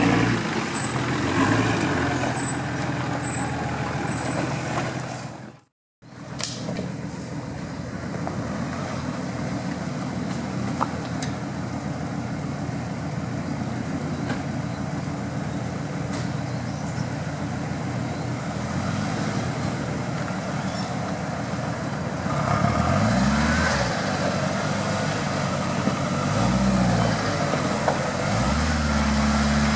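Off-road vehicle engine running steadily, with a short dropout to silence about six seconds in; near the end it is revved up and down three times.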